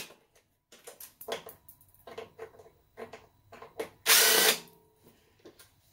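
DeWalt brushless cordless drill backing out a screw, one burst of about half a second near four seconds in whose pitch drops as it stops. Small clicks and taps of the drill and screws come before it.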